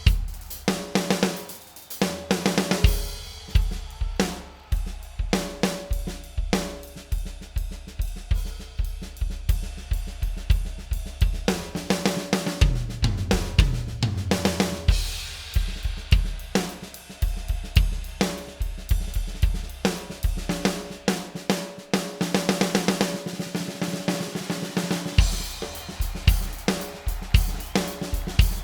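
Drum kit played solo: a continuous run of snare, bass drum, hi-hat and cymbal hits with no break.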